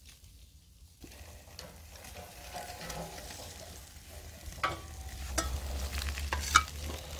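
Smoked herring sizzling over a charcoal fire on a metal grill grate, with several sharp clicks of metal tongs against the grate and platter as the fish is lifted off; the loudest click comes near the end.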